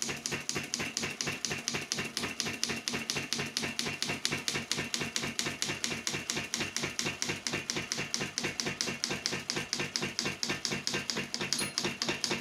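Manual English typewriter being typed on in a fast, even run of keystrokes, about nine a second.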